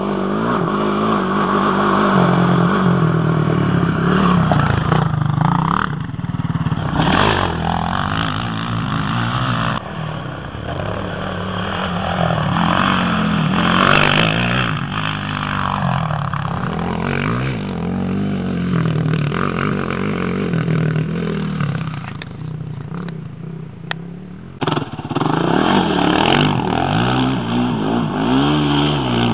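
Honda TRX450R sport quad's single-cylinder four-stroke engine being ridden hard, the revs repeatedly climbing and falling. Near the end the throttle comes off briefly, and then the engine pulls hard again.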